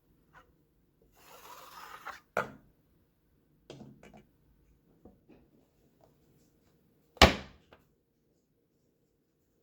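Handling noises: a brief rustle about a second in, a few light clicks and taps, and one sharp knock about seven seconds in.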